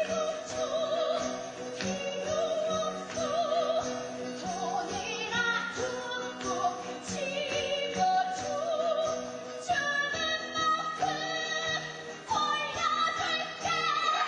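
Musical theatre song sung in Korean: a woman singing with strong vibrato over a band accompaniment that keeps a sharp, driving beat.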